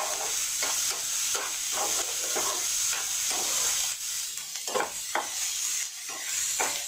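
Chopped onions and tomatoes sizzling in oil in a non-stick frying pan as they are sautéed, with a steady high hiss. A spatula scrapes and turns them in repeated strokes, about two a second.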